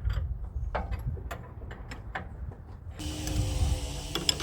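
Wrench clicking and clinking on steel hydraulic hose fittings as they are snugged down, in scattered sharp clicks. About three seconds in, a steady mechanical hum with a low held tone starts suddenly, with a couple more metal clinks near the end.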